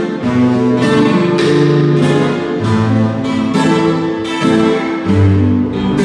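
A small group playing live: several acoustic guitars, one of them nylon-strung, strummed and picked in a steady rhythm over sustained electronic keyboard chords.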